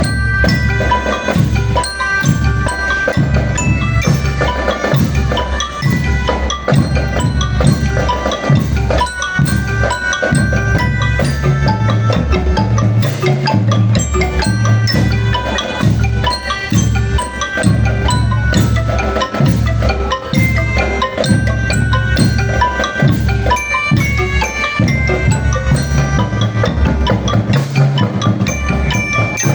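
Percussion music: a steady drum beat with a bright melody on struck metal bars or bells, like a glockenspiel.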